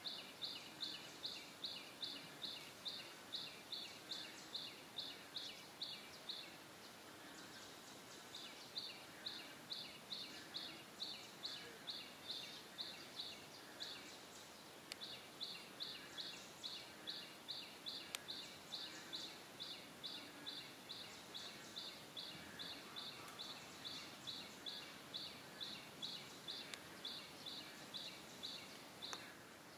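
A bird calling a long, regular series of short high chirps, nearly three a second, breaking off for a couple of seconds about a third of the way in and briefly again about halfway, over faint outdoor hiss.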